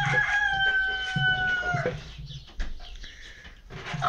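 A chicken giving one long, drawn-out squawk of about two seconds, falling slightly in pitch, a distress call as a dog noses at it; softer scuffling sounds follow.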